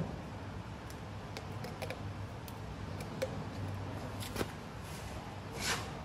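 Quiet handling sounds: a few faint clicks and a short rustling swish about five and a half seconds in, as a plastic engine-oil bottle and engine parts are handled, over a steady low hum.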